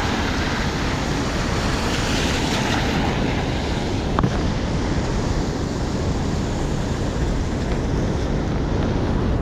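Steady hiss of heavy rain on a wet city street, with a brief click about four seconds in.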